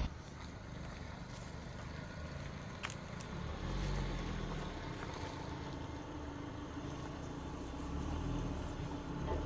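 Off-road 4x4 engine running as a low, steady drone that swells about four seconds in, with one sharp click about three seconds in.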